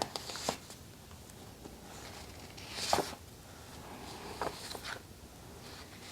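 Paper handling: a few short rustles and soft taps as notebook pages and sticker sheets are turned, the loudest about three seconds in.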